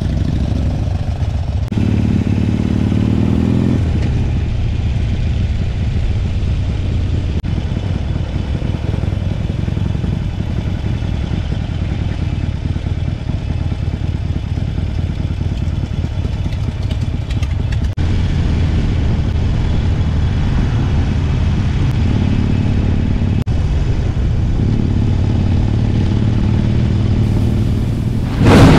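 A vehicle's engine running steadily, with a brief pitched hum a couple of seconds in. A sudden loud rush of noise comes right at the end.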